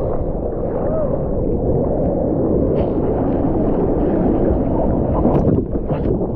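Steady, muffled rush of surf water over a mouth-mounted GoPro, with a few sharper splashes in the second half.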